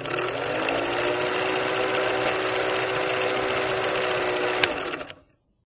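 Film projector sound effect: a steady whirr and fast mechanical clatter with a low hum that rises slightly as it starts, one sharp click about four and a half seconds in, then it cuts off about five seconds in.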